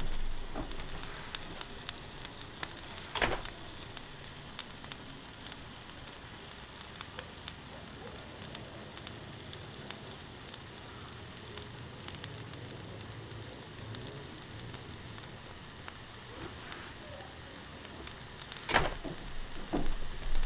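Thinly sliced sirloin steak sizzling and crackling steadily on a Blackstone flat-top griddle. There is a knock about three seconds in and a few more near the end.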